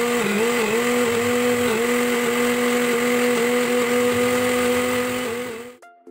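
Electric mixer grinder running, grinding soaked red lentils with a little water into a paste: a steady motor hum that dips briefly a few times in the first two seconds as the load churns, then cuts off near the end.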